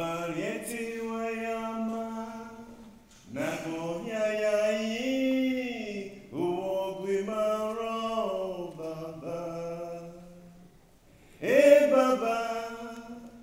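A man singing solo and unaccompanied, a chant-like song in about four long held phrases that slide up and down in pitch, with short breaths between them.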